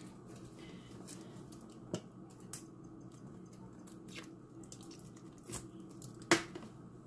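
Ketchup squeezed from its bottle onto raw ground-meat meatloaf mix: faint scattered squelches and small clicks, with one sharper click near the end, over a low steady hum.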